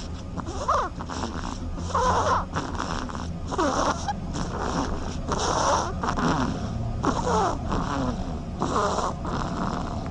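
Ducks snoring: a snore-like breathing sound repeated about every second and a half, each with a short whistly glide in pitch.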